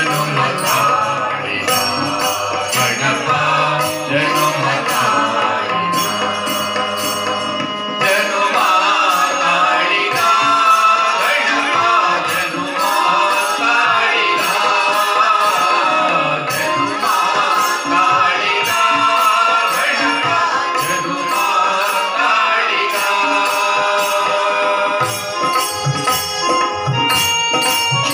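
Devotional song performed live by a small group of singers over instruments, with hand percussion keeping a steady beat.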